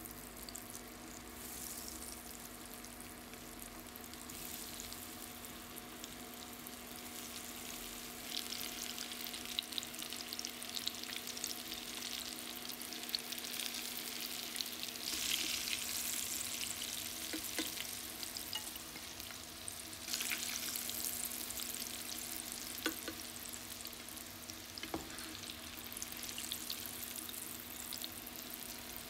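Breaded sausage pieces deep-frying in a pan of hot oil: a steady crackling sizzle that grows denser and louder toward the middle.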